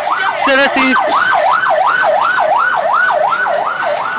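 Electronic vehicle siren in yelp mode, its pitch sweeping rapidly up and down about three times a second.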